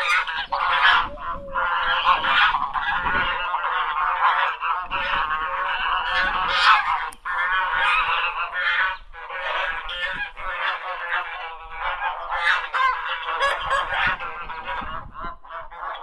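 A flock of ducks quacking, many calls overlapping into a near-continuous din.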